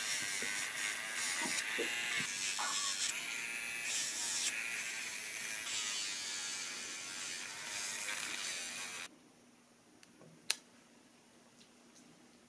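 Electric pet nail grinder running steadily as it grinds down a dog's claws, then cutting off suddenly about nine seconds in. About a second later comes one sharp click from a nail clipper cutting a claw.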